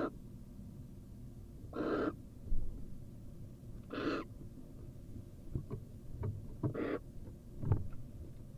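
Female barn owl giving short hissing calls, about one every two seconds, with a few small knocks between them from movement in the nest box.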